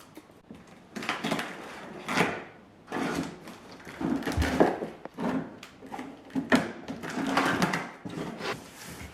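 Packaging being handled and opened: a series of irregular rustling and scraping sounds with a few knocks.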